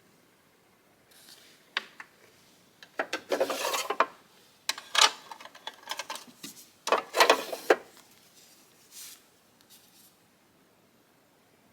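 Handling noise: scattered sharp clicks and taps, with a few short stretches of rubbing and scraping, as of small objects being moved and rubbed against each other.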